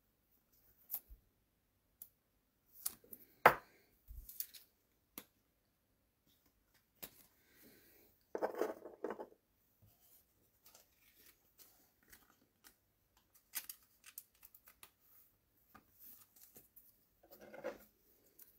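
A trading card pack wrapper being opened and the cards handled at close range: scattered light clicks and rustles, a sharp snap about three and a half seconds in, and longer crinkling stretches around the middle and again near the end.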